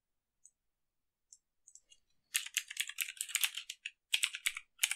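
Typing on a computer keyboard: a quick run of keystrokes starting a little over two seconds in, a brief pause, then a few more keys near the end. A few faint clicks come before the typing.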